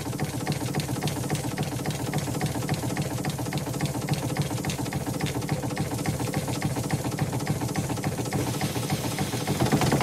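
Steam engine of a steam launch running at a steady pace: a quick, even mechanical clicking over a low hum, growing louder near the end.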